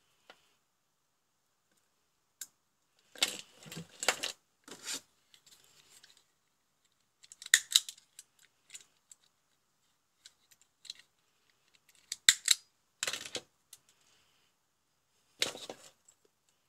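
Hand work on wiring: clicks, snaps and rustles of lever-type wire connectors being opened and closed on stripped wires, and of an automatic wire stripper being handled. The sounds come in short clusters with quiet gaps between them, and the sharpest click comes about twelve seconds in.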